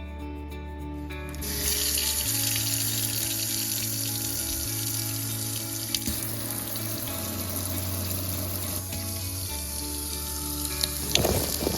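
Tap water running hard from a newly installed faucet into a sink, turned on about a second and a half in, with a few splashes and clinks near the end. Background music with held notes plays underneath.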